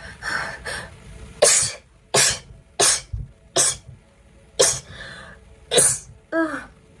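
A person sneezing in a rapid-fire fit: six short, sharp sneezes in quick succession, roughly one every three-quarters of a second. A brief falling vocal sound follows near the end.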